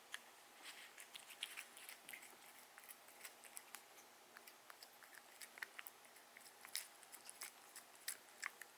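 Cat eating, with many small irregular crunches and clicks of chewing.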